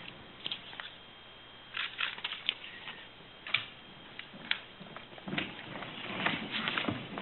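Scattered light knocks, clicks and rustles of people moving about a meeting room, with footsteps as someone walks back to a seat, a little busier near the end.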